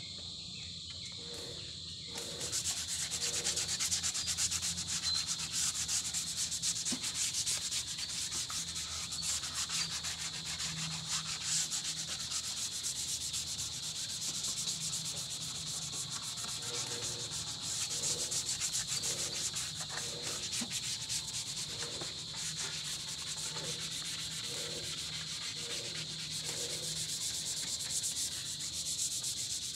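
Hand sanding of the painted steel cab panel of an old Isuzu dump truck: sandpaper rubbed over the metal in continuous scratchy strokes, starting about two seconds in.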